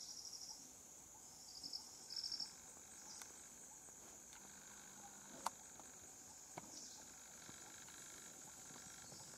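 Insects calling: a steady, faint high-pitched drone with a few short bursts of fast pulsed chirping in the first few seconds, and a single sharp click about halfway through.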